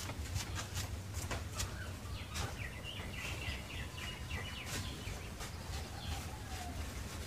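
Faint background ambience with small birds chirping, including a quick run of chirps in the middle, and scattered faint ticks.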